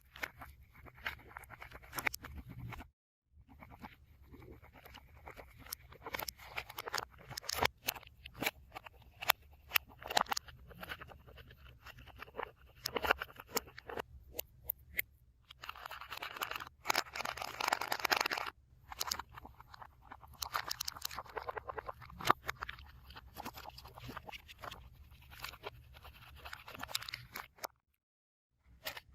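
Close-miked slime-making sounds: many small clicks, crackles and scraping of slime and ingredients being handled and mixed, with two longer stretches of denser, noisier squishing.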